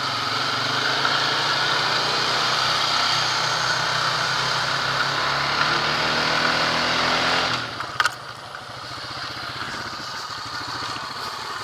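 ATV engine running under throttle across a field, its pitch climbing slightly, then the throttle released about two-thirds through so it drops to a quieter low-speed running, with a sharp click just after.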